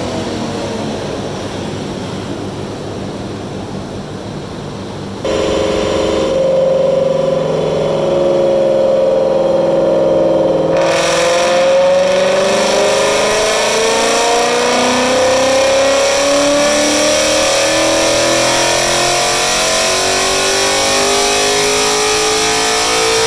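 Ford Mustang Gen 3 Coyote 5.0 V8 with full exhaust making a wide-open-throttle dyno pull. About five seconds in it suddenly gets much louder. The note holds, drops once in pitch around eleven seconds, then climbs steadily through the revs to the end.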